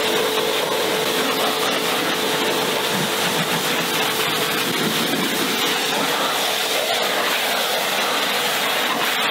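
Pressure washer jet spraying water onto a car's bodywork: a steady hiss with a steady hum underneath.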